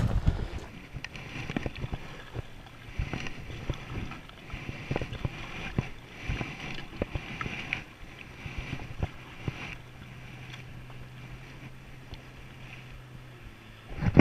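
Kayak paddling: the paddle blades splash and drip in the water, with scattered small knocks. A faint steady low hum comes in during the second half.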